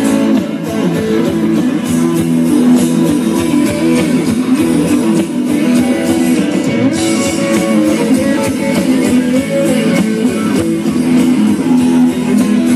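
A live rock band playing, led by an electric guitar solo of bending, sliding notes over the band.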